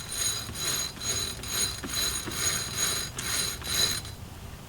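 A hand brush scrubbing metal brake parts in quick back-and-forth strokes, about two a second, with a faint high metallic ring running through them.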